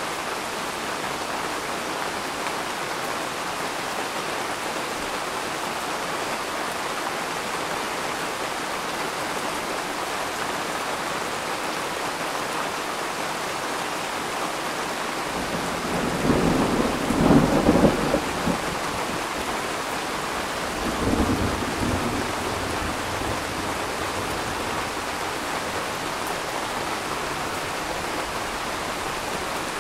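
Steady rain of a thunderstorm, with a roll of thunder coming in about halfway through: it swells to a loud peak, rumbles again more weakly a few seconds later, then dies away under the rain.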